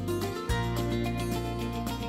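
Background music: a steady track with sustained bass notes that change about half a second in.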